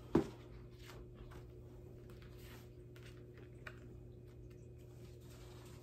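Paper coloring book being handled, its pages flipped, giving faint scattered ticks and rustles, with one short louder tap just after the start. A steady low hum lies under it.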